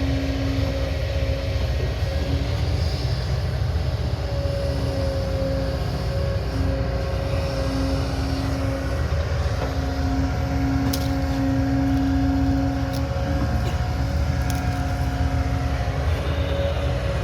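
Heavy construction machine's diesel engine running steadily under load, a deep rumble with a steady whine over it, and a few sharp clicks about two-thirds of the way through.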